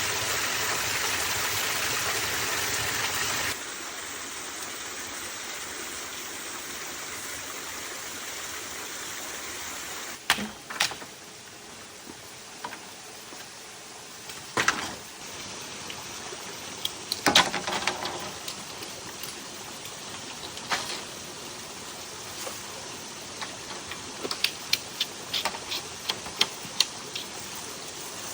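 Sharp knocks of tools working bamboo: a few single strikes, then a quick run of about a dozen taps near the end. Under them is a steady rushing noise, louder for the first few seconds.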